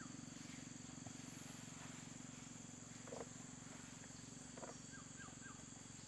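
Faint forest ambience: a steady, fast-pulsing insect drone, with a few short bird notes, including three quick falling whistles near the end.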